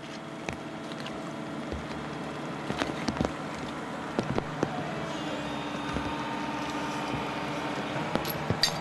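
A digger's diesel engine running steadily, with scattered knocks and clanks over it.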